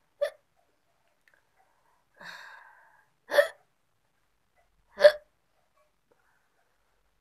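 A woman hiccuping: three short, sharp hiccups a couple of seconds apart, the last the loudest. There is a softer breathy sound between the first two.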